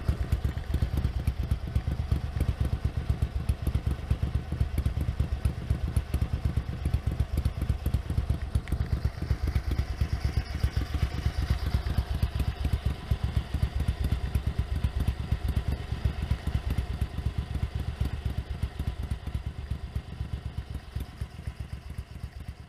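Ducati 900SS bevel-drive V-twin engine running steadily, with a rapid, even exhaust beat, fading out near the end.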